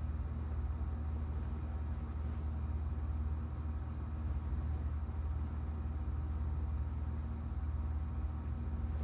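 A steady low mechanical hum, constant throughout, with no breathing rhythm to be made out.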